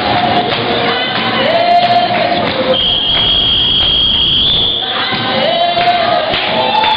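Voices singing a traditional Basotho dance song together, with held notes that slide up and down in pitch. A long high, steady note sounds over the singing for about two seconds, starting about three seconds in.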